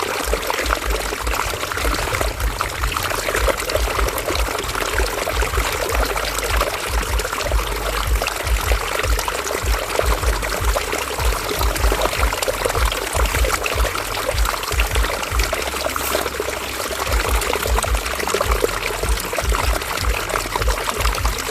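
River water flowing and splashing, a steady busy burble of trickling and pouring water with a fluttering low rumble beneath.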